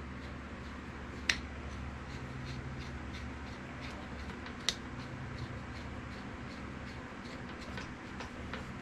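Two sharp clicks, about three and a half seconds apart, with a few faint ticks between them over a steady low hum: saw handles being fitted into the ends of a crosscut saw blade.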